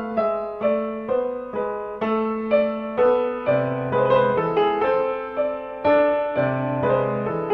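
Solo piano music, a steady run of single notes about two a second.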